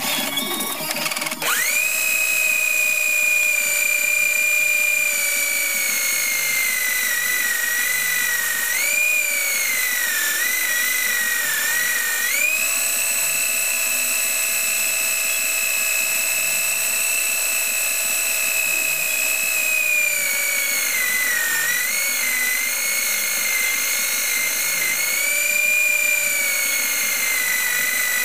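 Electric drill motor driving a belt-driven wood lathe, running with a loud, high whine. It spins up about a second in, and its pitch sags and wavers twice before climbing back.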